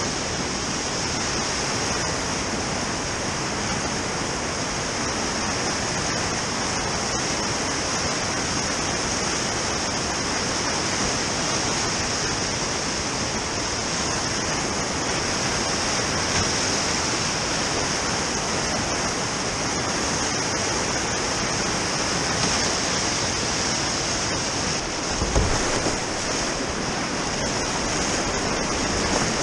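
Steady rushing of a whitewater river rapid heard close up at water level, with a brief low thump near the end.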